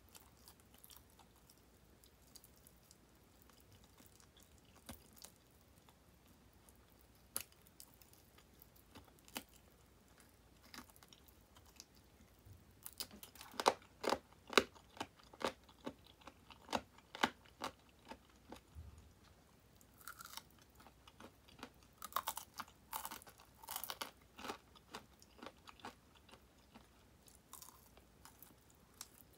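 Crunching and chewing of crisp deep-fried chicken wing 'tulips' (lollipop drumettes): a quiet first half with scattered small clicks, then from about halfway a run of sharp crunchy bites and chewing close to the microphone.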